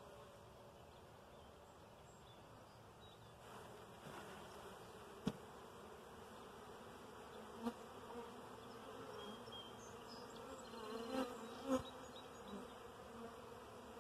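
Honeybees buzzing around an open nucleus hive, a faint steady hum. A few short sharp knocks from the wooden frames being handled come about five seconds in, again near eight, and twice close together near twelve.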